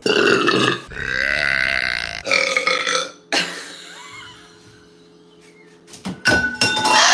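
A woman burping loudly three times: a short burp, a long drawn-out burp of over a second, and another short one, then a quieter stretch.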